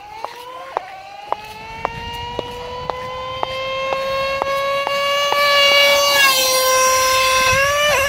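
Nitro two-stroke engine of a Traxxas Revo 3.3 RC monster truck whining at high revs on a speed run. The pitch climbs a little, then holds steady as the sound grows steadily louder, and it dips in pitch near the end. Light ticks repeat about twice a second through it.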